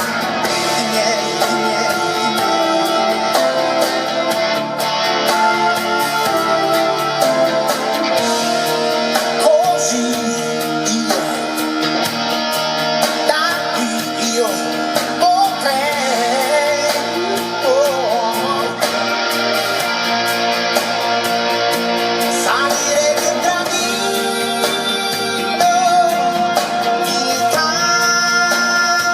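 A pop song with singing and guitar, played back through MB Quart 1000 loudspeakers fitted with rebuilt crossovers.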